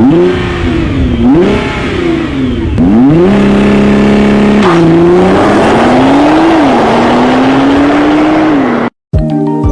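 Nissan GT-R's 3.8-litre twin-turbo V6 exhaust revving up and down several times, once held high for about a second and a half. The sound cuts off suddenly near the end, and light chiming music starts.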